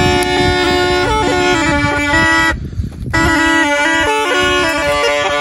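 Been (pungi), the snake charmer's reed pipe, playing a melody over a steady drone. The playing breaks off briefly about two and a half seconds in, then resumes.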